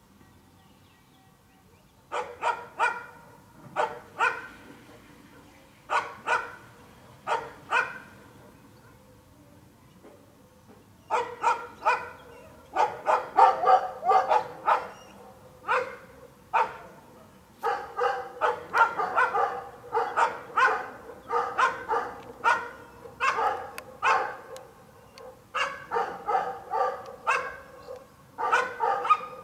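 A dog barking in short runs of two to four barks. It starts about two seconds in and barks almost without pause from about eleven seconds on.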